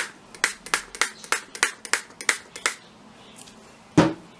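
Spray bottle of liquid leave-in conditioner being pumped, about ten quick spritzes at roughly three a second, followed about four seconds in by one loud thump.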